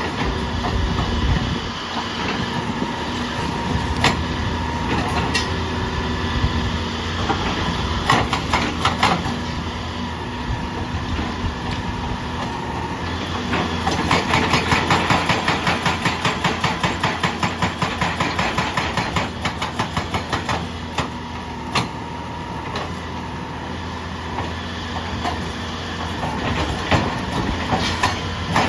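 Excavator engine running steadily with occasional clanks. About halfway through, a hydraulic breaker hammer pounds in a fast, even run of blows, about four or five a second, for several seconds.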